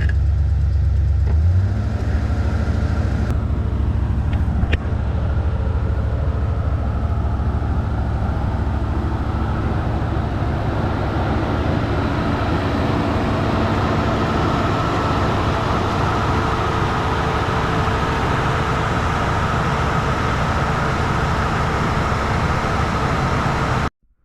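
Car engine running, its note changing about a second and a half in, then a steady mix of engine and road noise, which cuts off suddenly near the end.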